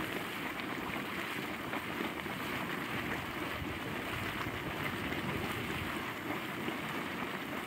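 Steady splashing and bubbling of a boiling hot spring vent at a lake's edge, mixed with wind.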